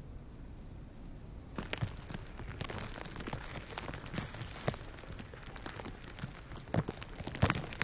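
Dense, irregular pattering and crackling of falling wet snow on leaves and twigs. It sets in about a second and a half in, after a faint steady hiss, and a few louder crunches come near the end.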